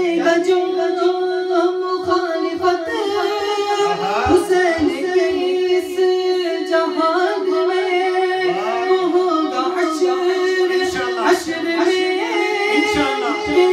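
Unaccompanied male singing of an Urdu devotional manqabat: a long held note with drawn-out, ornamented vocal runs bending up and down above it, no instruments.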